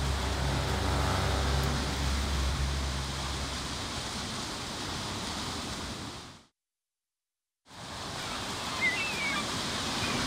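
Surf washing and breaking around rocks in open sea, with a low steady motor hum under it for the first three seconds or so. The sound cuts out completely for about a second past the middle, then the surf comes back.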